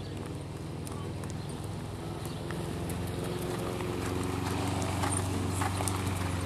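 Horse cantering on sand arena footing, its hoofbeats coming as soft irregular knocks. Under them runs a steady low hum that grows louder over the second half.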